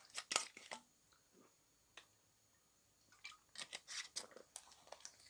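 Faint, scattered clicks and light rustling from hands handling small objects. A few come at the start, one about two seconds in, and a quicker run of them near the end.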